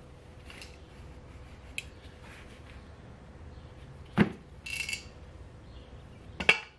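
An emptied two-stroke dirt bike silencer canister being handled: a few light clicks, then two sharp metal knocks about two seconds apart, the first followed by a brief metallic ring. Something loose is knocking inside the canister, which the owner takes for broken-off rivets.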